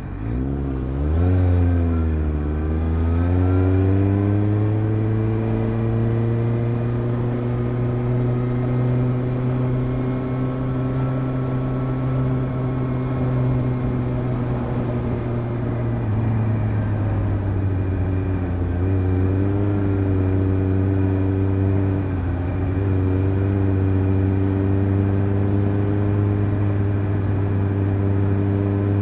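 Suzuki GSR750's inline-four engine through a Fuel stainless slip-on exhaust with its dB-killer in. It climbs in pitch over the first few seconds, then holds a steady drone. There are small throttle changes about two-thirds of the way in.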